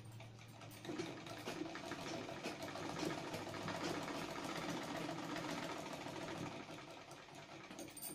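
Domestic sewing machine running, its needle stitching a seam through layered fabric with a fast, even mechanical chatter. It grows louder about a second in, runs steadily, then eases off and stops at the end.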